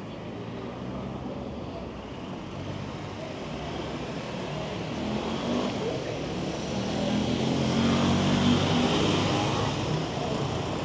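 A motor vehicle passing along the street, its engine and tyre noise growing louder to a peak about eight seconds in, then starting to fade.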